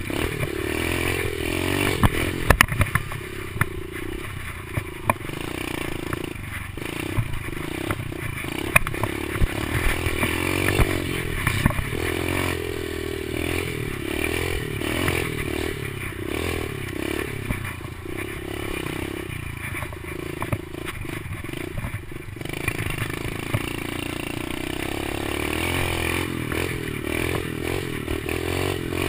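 Kawasaki KLX110 pit bike's small four-stroke single-cylinder engine being ridden hard, its pitch rising and falling as the throttle is worked. Sharp knocks and rattling clatter as the bike bounces over the rough dirt trail.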